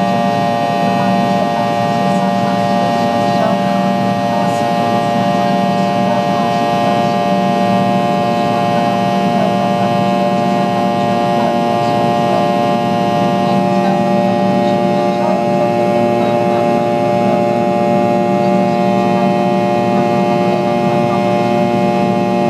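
Fokker 70's rear-mounted Rolls-Royce Tay turbofans heard from inside the cabin while climbing out after take-off. A loud, steady engine whine made of many steady tones over a low rumble.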